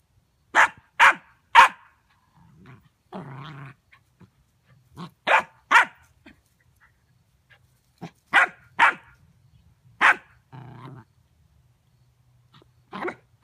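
Golden retriever puppy barking in short, sharp barks in groups of two to four, with low growls in between.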